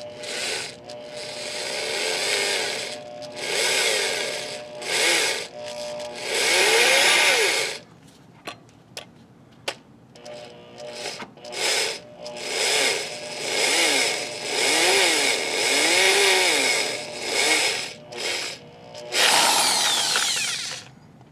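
Electric drill in reverse, turning a left-hand drill bit into a broken steel bolt in a flywheel, run in repeated short bursts as the trigger is squeezed and released. The motor pitch rises and falls within each burst. The bolt is hard metal and slow to drill.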